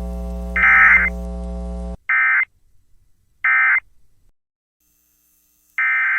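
Emergency Alert System SAME data bursts: harsh digital buzzes repeating about every second and a half. Under the first two seconds runs a steady mains hum, which cuts off suddenly. Two more short bursts follow, and near the end comes a longer burst about a second long.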